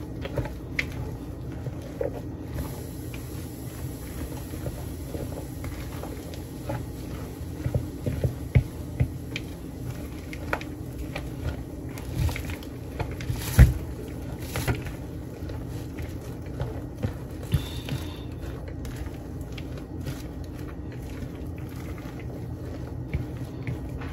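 A spoon stirring and turning a chopped-apple salad in a large bowl: wet squelching with irregular clicks and knocks of the spoon against the bowl, one louder knock a little past halfway. A steady low hum runs underneath.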